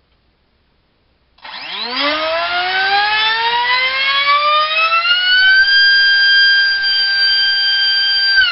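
Turnigy Assault 450 3800kV brushless helicopter motor spinning a 4x3 high-speed propeller on a thrust stand. After a short pause a loud whine starts about a second and a half in and rises steadily in pitch as the throttle is opened. It holds at full throttle from about five and a half seconds in and starts to fall right at the end as the throttle comes off.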